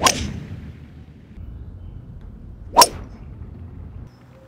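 Two golf drives off the tee: a driver's clubhead cracking against the ball, once at the start and again nearly three seconds later, each a sharp crack with a short fading tail.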